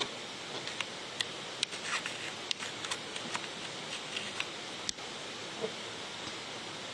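Steady hiss with scattered light clicks and taps, thickest in the first four seconds or so, from a phone being handled and adjusted while it records.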